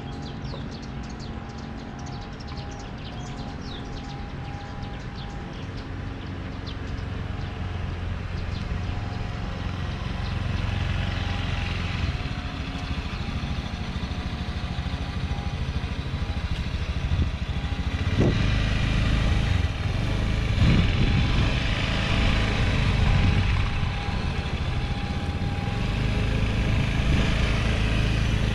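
Motorbike running while being ridden slowly, a steady engine and road rumble that grows louder over the second half.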